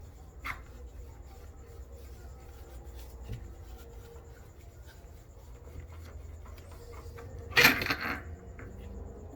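Metal transmission parts and tools being handled on a workbench: faint clicks, then a loud brief metallic clatter near the end.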